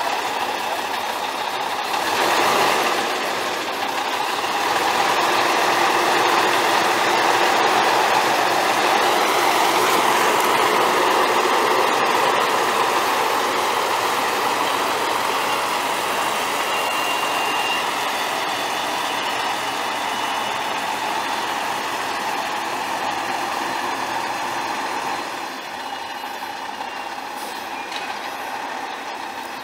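Mack E7 12.0-litre six-cylinder turbo diesel of a dump truck running steadily, getting louder about two seconds in and dropping off somewhat near the end.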